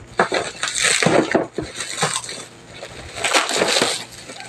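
Plastic bubble wrap on a parcel crinkling and crackling as it is pulled at and torn open by hand, the handling coming and going irregularly.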